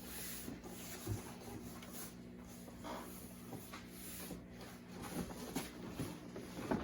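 Faint rubbing and shuffling of a cardboard shipping box and its packing as the plane is worked out of it, with a soft thump about a second in and a few short scrapes and knocks near the end.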